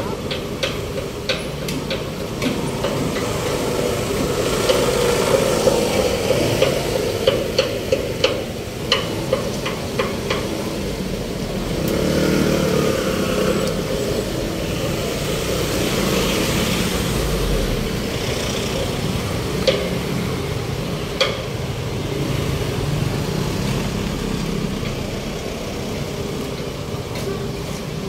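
City street traffic: motor vehicles running and passing, with a louder vehicle swelling past about twelve seconds in. A run of sharp clicks or knocks sounds over the first ten seconds, and two more near the twenty-second mark.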